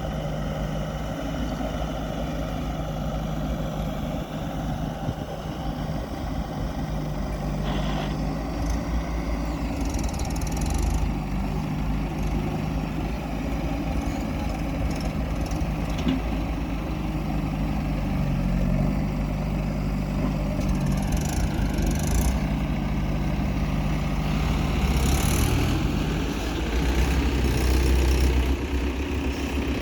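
Heavy diesel engine running steadily, its pitch dipping and changing about two-thirds of the way through as the load shifts. There are a few brief hissing bursts on top.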